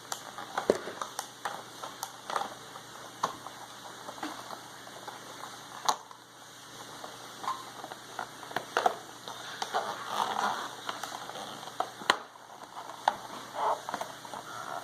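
Toy packaging being handled and torn open: plastic wrappers crinkling and rustling, with many small irregular clicks and taps.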